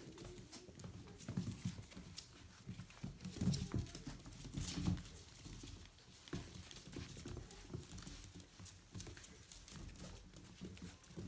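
Aussiedoodle puppies moving about: irregular soft thumps with scattered sharp clicks.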